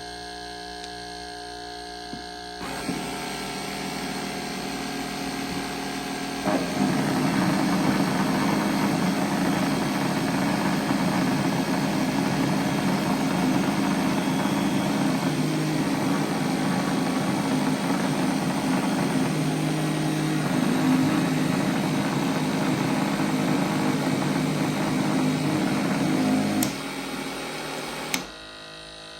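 Joyzze Raptor cordless grooming clipper running with a steady buzz, stepped up to its top speed about three seconds in. About six seconds in it turns much louder and rougher with a strong low hum, then drops back near the end.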